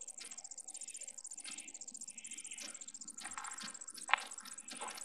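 Outdoor insects chirring in a steady, fast-pulsing high-pitched drone, with birds calling over it in short rising and falling notes. A single brief sharp sound stands out about four seconds in.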